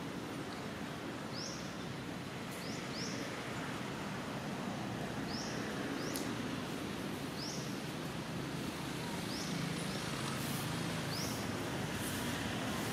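Outdoor forest ambience: a steady low background noise with a small bird repeating a short, high, upward-sweeping chirp every second or two.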